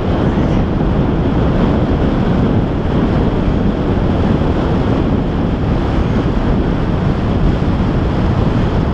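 Steady rush of airflow over the microphone of a camera mounted on a paraglider in flight, heavy in the lows and without a break.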